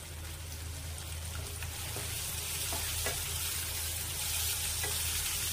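Potato slices sizzling in hot oil in a nonstick kadhai while being stirred and turned with a spatula. The sizzle grows louder about two seconds in, with a few light taps of the spatula against the pan.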